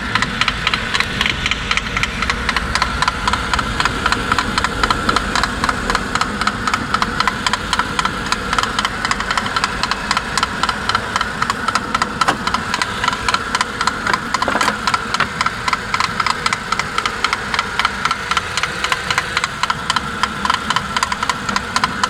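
Suzuki Grand Vitara's J20A 2.0-litre four-cylinder engine idling cold with a rapid, even knock. The owner takes it for piston skirt slap, and also suspects spun crankshaft bearings.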